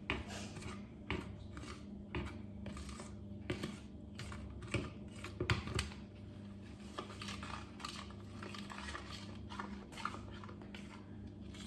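A spoon stirring butter chicken masala powder and milk into a paste in a bowl, with irregular clinks and scrapes against the bowl, over a steady low hum.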